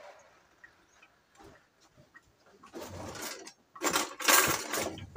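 Hand-washing at the kitchen sink: a few faint clicks, then running water and rubbing hands in two noisy stretches, the louder one in the second half. It ends with a sharp knock.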